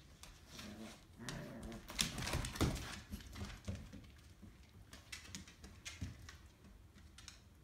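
Two dogs playing tug of war: claws clicking and scrabbling on a vinyl floor, with a louder stretch of growling from about one to three seconds in.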